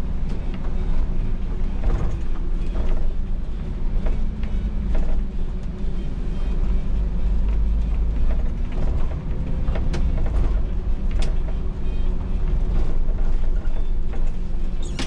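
MAN Lion's City NL283 diesel city bus under way, heard from the driver's cab: a steady low engine and road rumble with frequent creaks, clicks and rattles from the bus body and cab fittings.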